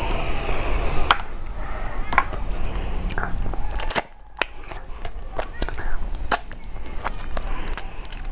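Hand-eating sounds: fingers squishing rice and fish curry, then wet chewing with repeated lip smacks and mouth clicks.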